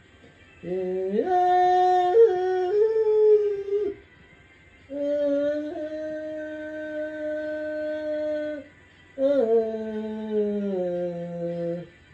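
A lone voice, with no accompaniment, sings three long wordless phrases of held notes. The pitch steps and slides between notes, and the last phrase steps down. There are short quiet gaps between the phrases.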